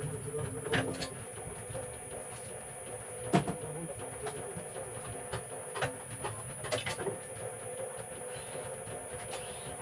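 Motor-driven wire stripping machine running with a steady hum, with scattered knocks and clicks as copper wire is fed and handled; one knock about three and a half seconds in is the loudest.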